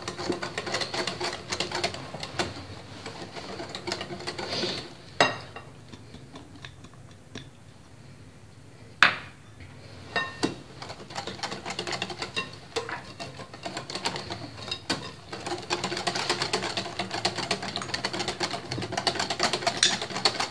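Wire whisk beating cocoa pancake batter in a glass bowl: a fast rattle of clicks against the glass. It thins out in the middle, broken by a few single sharp knocks, then picks up again near the end.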